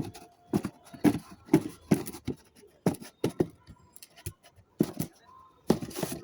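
Consumer firework shot cake firing: a quick, irregular run of sharp pops and bangs, a dozen or more in about six seconds, bunching together near the end.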